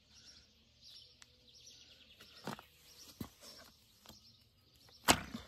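Light clicks as the elastic bungee cords of a pool cover are stretched and handled, then a sharp click about five seconds in as a cord's hook is fastened to a deck anchor. Birds chirp faintly in the background.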